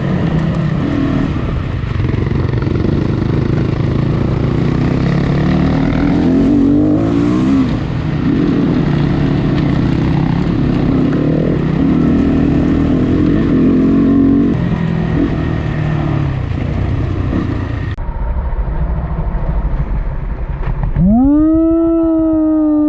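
Off-road dirt bike engine running under changing throttle, its pitch rising and falling, over a steady rush of wind and riding noise. About two seconds from the end a loud long pitched call rises and falls over it.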